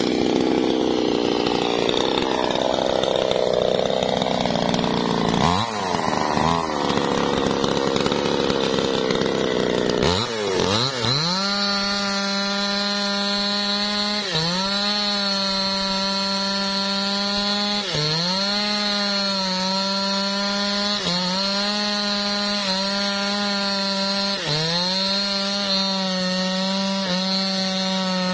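Maestro MT6500L two-stroke chainsaw cutting into a teak trunk, with a couple of quick throttle blips about six seconds in. From about ten seconds in it runs hard at full throttle, the pitch dipping briefly every few seconds as the chain bites into the wood, then recovering.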